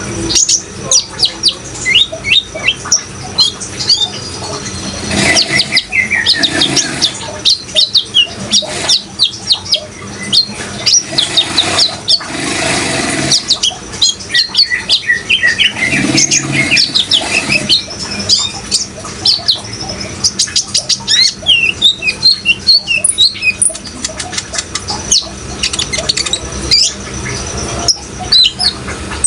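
Brown-throated sunbird (kolibri ninja) singing in a fast, continuous run of high chirps and trills, over a background of running water.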